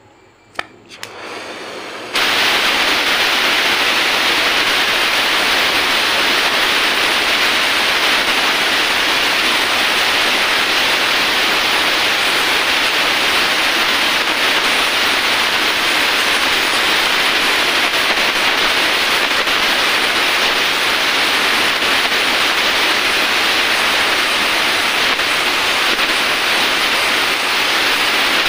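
Oxy-acetylene welding torch, run on acetylene from a carbide generator, hissing steadily with its flame on the aluminium crankcase. The hiss comes on suddenly about two seconds in, after a couple of faint clicks.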